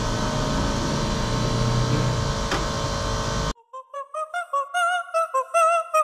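Steady mechanical whirring with a hum, cut off abruptly about three and a half seconds in, then background music with a wavering, trumpet-like melody.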